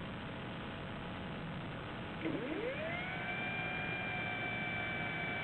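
Telemaster model airplane's motor over a steady rush of noise. A little over two seconds in, the motor's pitch dips and then rises to a steady tone that holds.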